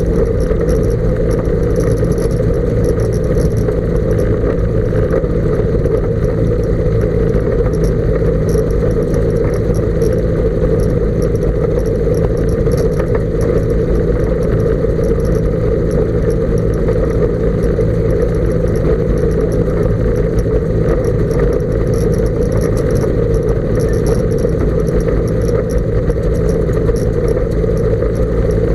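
Kolb Mark III ultralight's engine and propeller running steadily as the aircraft taxis, heard close up from the wing.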